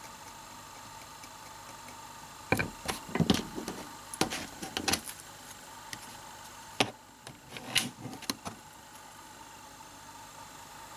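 Short scrapes and clicks of a scraper card dragged across a metal nail-stamping plate to clear off excess polish, in two quick clusters a few seconds apart.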